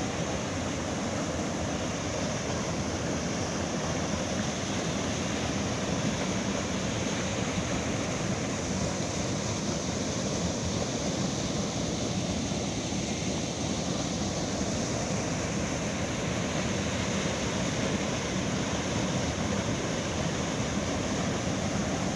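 Waterfall: the steady rush of falling water, running full after rain.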